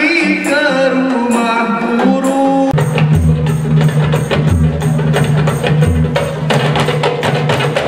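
Marawis ensemble: a man singing over tambourines, then, after an abrupt change about two and a half seconds in, frame drums and tambourines playing a dense, driving rhythm with a heavy low drum beat.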